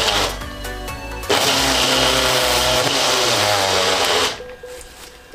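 Personal blender motor running in two pulses as it blends milk, ice cream and crushed Oreo biscuits into a shake. It cuts out just after the start, starts again abruptly about a second in, runs for about three seconds, then stops.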